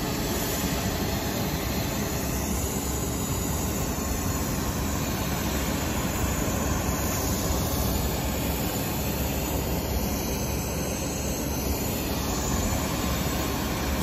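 Steady aircraft engine noise, an even rushing drone that holds at one level throughout.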